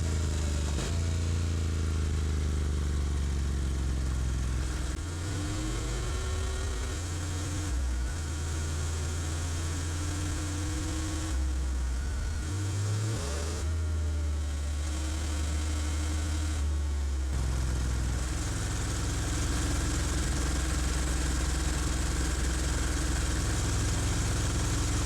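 Honda NC750X motorcycle's parallel-twin engine running, its low note shifting in pitch several times, over a steady hiss of wind and road noise.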